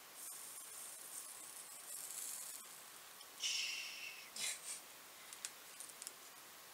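Rosin flux sizzling as a soldering iron tins stranded wires, a faint hiss with a louder hiss about three and a half seconds in, followed by a few small clicks.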